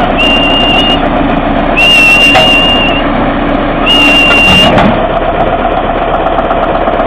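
Crawler tractor's engine running steadily, with three shrill whistles over it, each held for about a second; the whistles come at the start, about two seconds in and about four seconds in.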